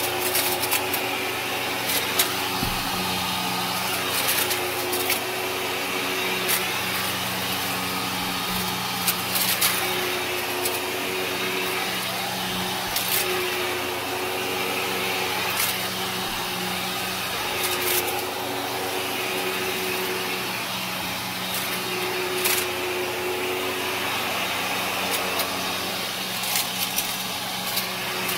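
Kenmore upright vacuum cleaner running steadily over shag carpet, its motor a continuous drone. Scattered crunches and crackles come through it as grit is sucked up from the carpet.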